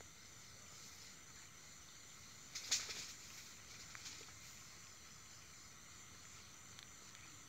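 Faint outdoor night ambience: a steady high-pitched insect drone, with a brief rustle about two and a half seconds in and a small tick a little later.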